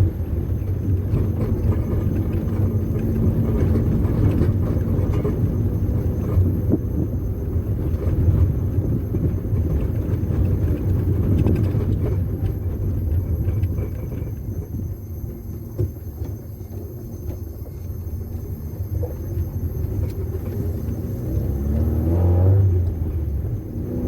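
Chevrolet Chevette's four-cylinder engine, fuel-injected by an Arduino-based controller, running under way with a low, steady rumble. It eases off and goes quieter past the middle, then revs up again, rising in pitch, near the end.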